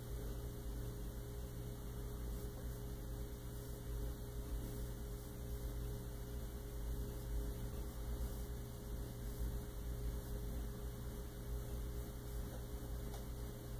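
Steady low electrical hum with a faint hiss under it: the room tone of a quiet house, with no banging.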